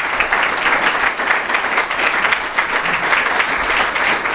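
Audience applauding: many hands clapping in a dense, steady ovation.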